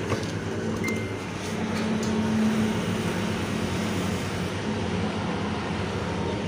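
Fuel dispenser's pump motor humming steadily while petrol is pumped into a motorcycle's tank, with a short beep about a second in.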